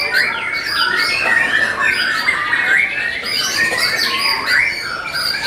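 Several caged white-rumped shamas (murai batu) singing at once: a dense, unbroken tangle of overlapping whistles, warbles and chatter.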